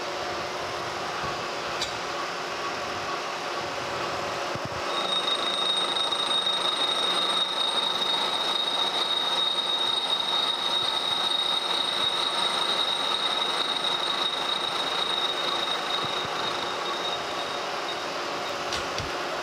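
Kearney & Trecker 3H horizontal milling machine running, its gear cutter feeding dry into a cast iron gear blank. About five seconds in, a steady high-pitched whine comes in as the cutter works through the cut, and it fades near the end. The cutter is cutting on almost every tooth, which is the sign of a cutter running true.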